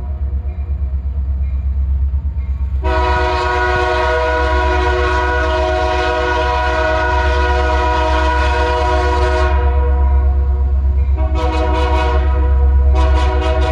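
Diesel locomotive air horn: a long blast starting about three seconds in and lasting some six seconds, then a short toot, then another blast beginning near the end, over a steady low rumble.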